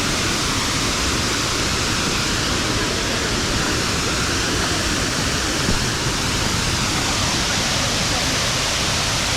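Waterfall running: a steady rush of a lot of water pouring over rocks.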